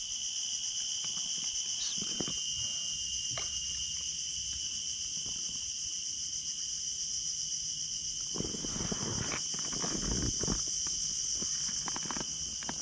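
Steady, high-pitched insect chorus, with a few brief rustles and knocks between about eight and ten seconds in.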